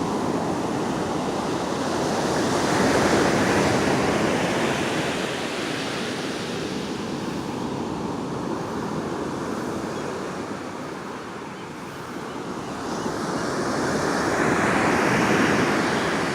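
Ocean surf: waves washing onto the beach, the wash swelling about three seconds in and again near the end.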